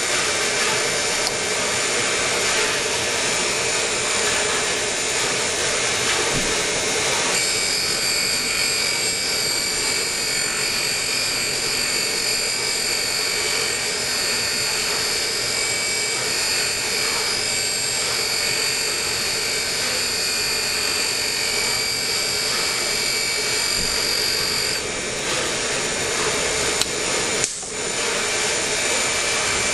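Valve refacing machine running, grinding the face of an engine valve. A high steady whine comes in about seven seconds in and stops about twenty-five seconds in, and the noise briefly drops near the end.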